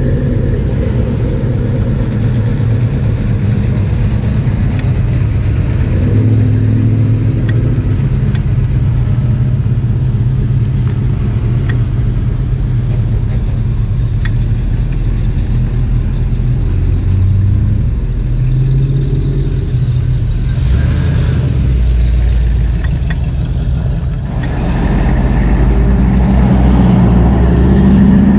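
Classic cars' engines running as they pull away and drive slowly past one after another. Near the end, a louder rush of engine and road noise builds as vehicles pass on the street.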